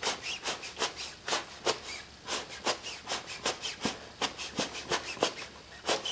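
Quick puffs of blown air, about four a second, blowing loose sand out of the cavity of a sand mold for a flywheel casting.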